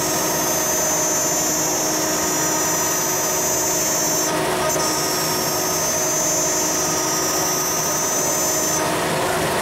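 CNC router spindle milling aluminium plate: steady machine noise with a high, steady cutting whine. The whine breaks off briefly a little past midway and stops shortly before the end.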